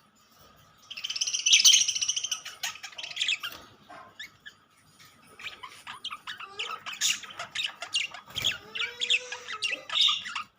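Budgerigars chattering and chirping: a loud burst of harsh chatter about a second in, then a run of quick short chirps and warbling notes.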